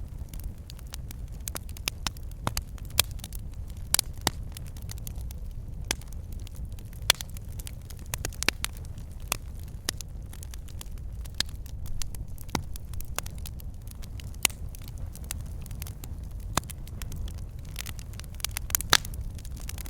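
Wood fire burning in a fireplace: logs crackling and popping in irregular sharp snaps, several a second, over a steady low rumble of flame.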